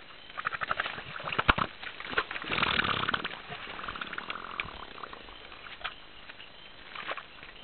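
African forest elephants wallowing in wet mud: wet squelching and clicking of mud and bodies, with a quick run of clicks near the start and a sharp click about a second and a half in. About two and a half seconds in comes a louder rushing burst lasting under a second.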